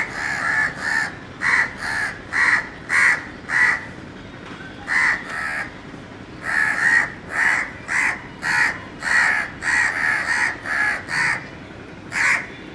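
House crows cawing over and over in short caws, two or three a second, in runs with brief pauses between them. These are mobbing calls aimed at a cat lying on the ground.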